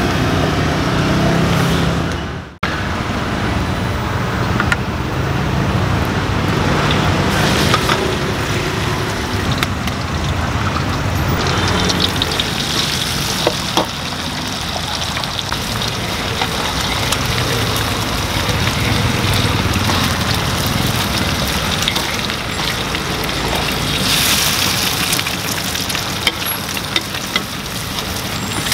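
Street-stall cooking ambience: food sizzling in a frying pan over steady road-traffic noise, with a few short sharp clicks. The sound cuts out sharply for a moment about two and a half seconds in.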